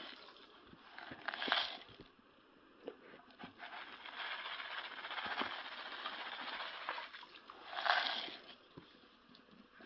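Fish being fed in a pond: feed pattering onto the water and fish splashing at the surface. There are two short louder splashes, about a second and a half in and around eight seconds in, with a steady patter in between.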